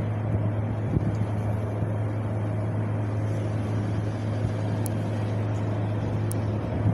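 Wind blowing steadily: a constant low rumble under a soft, even rushing, with a brief gusty thump about a second in.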